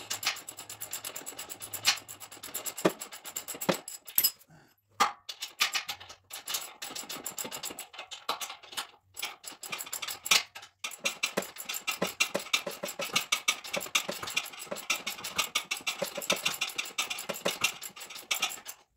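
Hand socket ratchet clicking rapidly in runs as bolts are worked on a front suspension frame, broken by a few short pauses.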